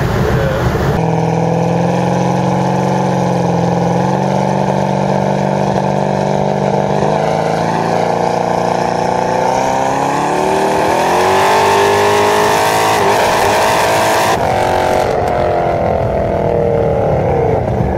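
Twin-turbocharged 388 cubic inch LS V8 of a 1500 hp Camaro on the road, running steadily, then rising in pitch as it accelerates about ten seconds in and easing off near the end.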